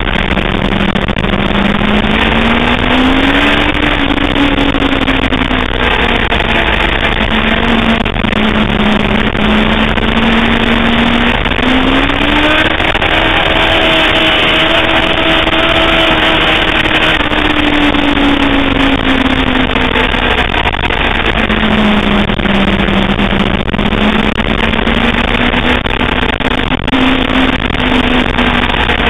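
Sportbike engine heard onboard on a race track, its note climbing and falling slowly as the bike accelerates and slows, under a heavy, steady rushing noise.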